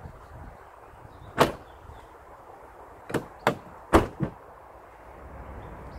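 Citroën Berlingo tailgate slammed shut about a second and a half in. About two seconds later comes a quick run of four sharp knocks and clunks at the tailgate, the third the loudest.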